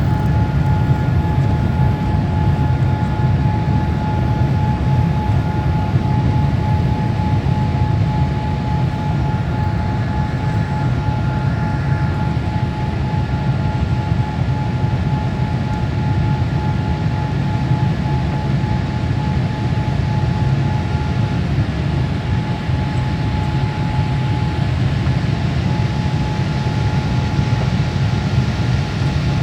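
Jet airliner engines and airflow heard from inside the cabin: a steady low rumble with a thin, steady whine above it, which fades out briefly about two-thirds of the way through.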